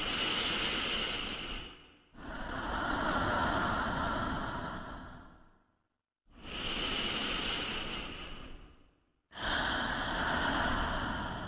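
Slow, deep, amplified breathing, like the Earth breathing: two full breaths, each a drawn-in breath of about three seconds followed straight away by a longer, lower breath out.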